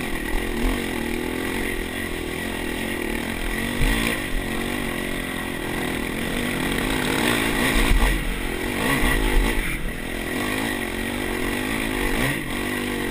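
Dirt bike engine revving up and down repeatedly under load on a steep, rocky hill climb, with a few knocks from the bike bouncing over the rough ground, loudest about eight seconds in.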